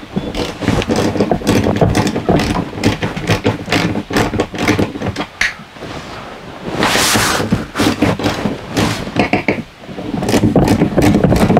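Rapid metallic clicks of a socket ratchet backing out lag bolts on a slide-room cable pulley bracket, over a steady motor hum. About seven seconds in comes a rush of noise lasting about a second, and near the end the hum grows louder.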